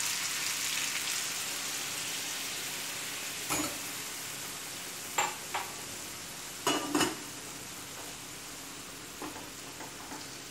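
Water poured into a hot frying pan of buttered toasted noodles sizzling and bubbling, the hiss loudest at first and slowly dying down. A few short knocks come midway.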